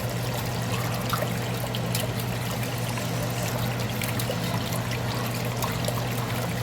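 A metal whisk stirring a thin, liquidy sauce in a pot, with wet swishing and many small irregular clicks of metal against the pan, over a steady low hum.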